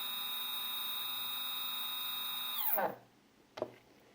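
Two stepper motors wired in parallel running at a steady speed with a high, many-toned whine, then slowing with falling pitch and stopping about three seconds in. A single click follows shortly after.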